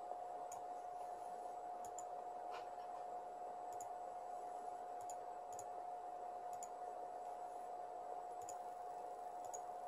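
A computer mouse clicking about ten times, several in quick pairs, as layers are switched on and off in a CAD program. A steady high-pitched tone and faint hiss run underneath.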